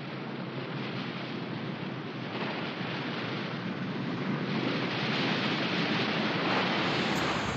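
A rushing, wind-like noise with no distinct events, swelling steadily louder.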